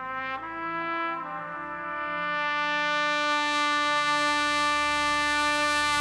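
Trumpet played solo: a couple of short notes, then one long held note that grows louder, over a quieter low sustained backing.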